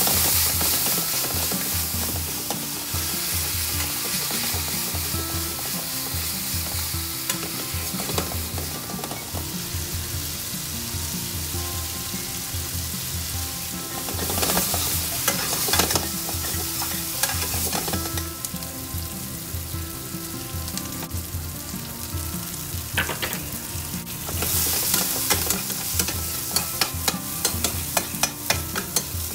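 Chicken and spices sizzling in oil in a frying pan while a spatula stirs and scrapes through them. It is loudest at the start as the pan flares up, and near the end there is a quick run of sharp clicks.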